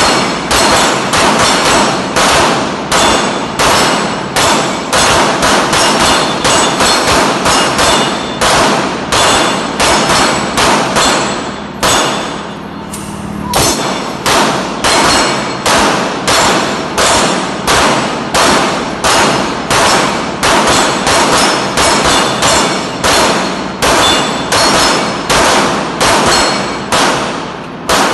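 Rapid gunfire from two shooters with bullets clanging off the steel plates of a dueling tree, about two shots a second, each with a metallic ring, and a short pause about halfway through.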